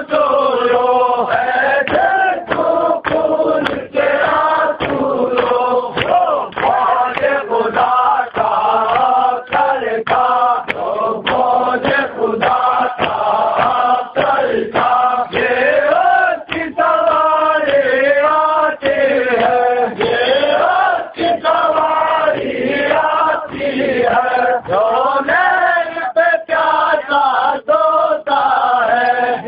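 A group of men chanting a noha, a Shia Muharram lament, in a loud sung melody without pause.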